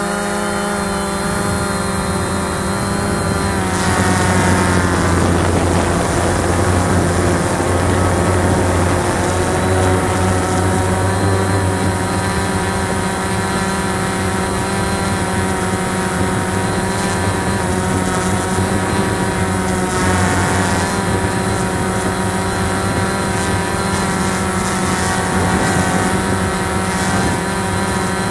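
Cheerson CX-20 quadcopter's brushless motors and propellers running steadily, heard from the camera on board. The tones shift in pitch about four seconds in and again around twenty seconds in as the motors change speed.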